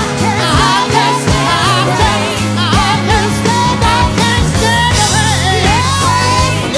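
Live blues band with drums and electric bass playing while a man and a woman sing a duet, their voices wavering in long, drawn-out lines.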